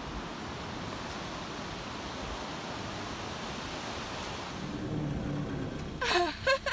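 Surf breaking on a beach, a steady wash of noise, with wind on the microphone. Near the end a sudden, loud burst of high, sliding voice-like sounds cuts in.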